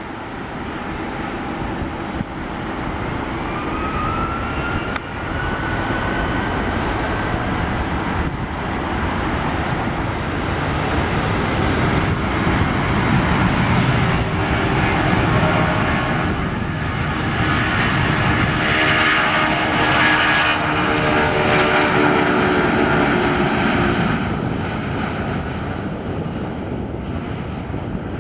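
Boeing 757-200's twin Rolls-Royce RB211 turbofan engines at takeoff thrust. A whine rises in pitch about four seconds in, then the steady engine noise grows to its loudest through the middle and eases a little near the end as the jet moves away.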